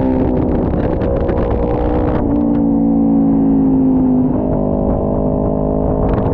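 A 400 race motorcycle's engine heard from on board, with wind rushing over the microphone. The engine note sits low through a slow corner, then climbs from a little past halfway as the throttle opens again.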